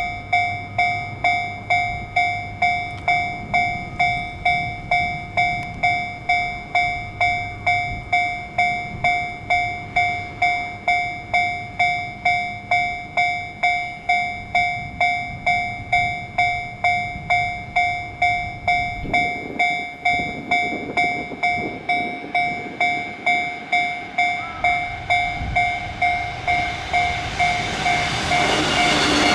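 Japanese level crossing's electronic warning bell ringing steadily, a little under two strikes a second. Near the end the rising noise of an approaching E257 series electric train builds up under it.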